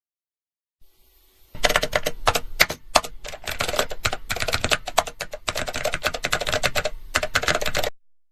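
Sound effect of rapid typing on keys: a fast, irregular run of sharp keystroke clicks that starts about a second and a half in and stops abruptly near the end.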